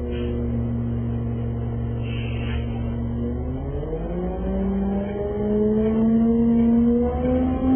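City bus engine heard from inside the bus, running at a steady pitch, then from about three seconds in rising steadily in pitch and getting louder as the bus accelerates.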